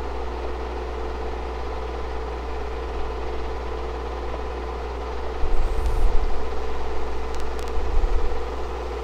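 Steady mechanical hum of a film projector running, with a strong low drone and constant whining tones. Two dull low rumbles come about five and a half and eight seconds in.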